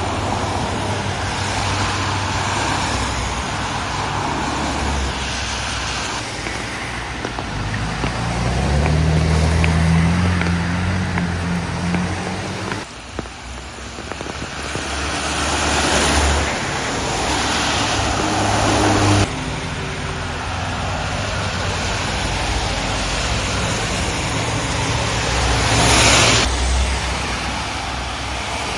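Cars passing on a wet road, tyre hiss on the rain-soaked pavement swelling and fading with each pass, over steady traffic noise. One vehicle's engine hum is heard in the middle.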